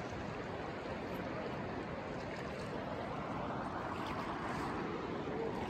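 Fast river current rushing over rocks along the bank, a steady, even noise.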